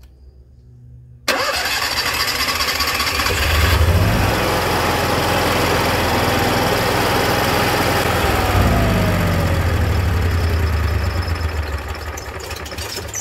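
Onan RV generator engine cranked by its electric starter over and over without catching quickly, because it needed priming. It kicks in suddenly about a second in, runs steadily and tapers off near the end.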